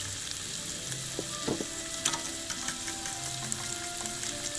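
Vegetables sizzling steadily in a frying pan on a portable gas stove, while eggs and milk are stirred in a second metal pan, the utensil clicking against the pan a few times.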